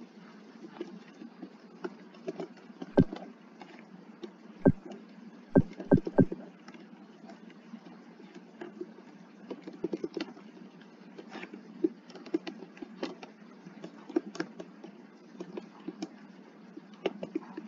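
Computer keyboard being typed on slowly and unevenly, a few key clicks a second, with several heavier key strikes between about three and six seconds in.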